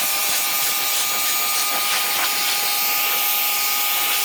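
Pressure washer spraying, rinsing degreaser off an engine: a loud, steady hiss of the water jet over a steady whine from the machine.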